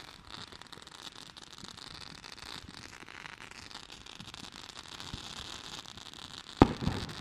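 Faint steady hiss, then about six and a half seconds in a sharp loud bang followed quickly by a smaller one: fireworks exploding.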